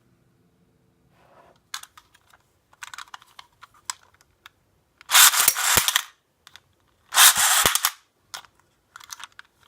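Plastic parts of a Beyblade launcher being handled: scattered small clicks, then two loud rasping rattles of about a second each.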